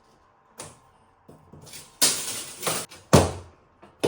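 Wooden knocks and taps from cabinet parts being handled, with a short rushing scrape about halfway through and one heavy thud about three seconds in.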